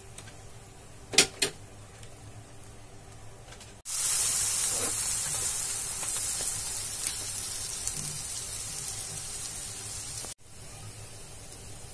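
Egg cheela sizzling in a hot non-stick pan once it has been flipped and pressed with a spatula. The sizzle starts suddenly a few seconds in, eases off slowly, and cuts out near the end. Two light knocks come about a second in.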